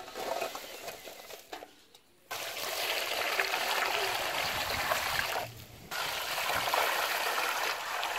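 Water poured in a steady stream onto a heap of tiny shrimp in a large steel basin, in two pours with a short break about five and a half seconds in. Before the water starts, a softer rustle as the shrimp are tipped into the basin.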